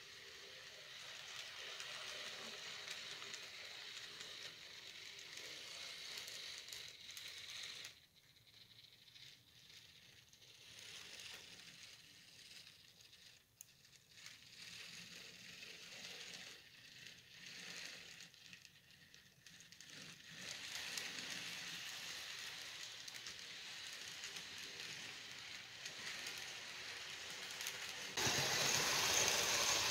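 Model trains running on a layout: a faint rattling hiss of wheels on the track and locomotive motors that fades and returns, then becomes suddenly louder near the end.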